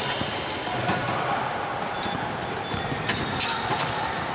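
Basketball shooting practice with a ball-return machine in a large echoing gym: a few sharp knocks of balls on rim, backboard and floor, about one a second, over the gym's reverberant background.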